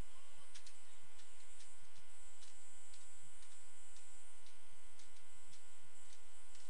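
Steady electrical mains hum with many overtones, with faint irregular clicks about two or three a second: interference on the audio line.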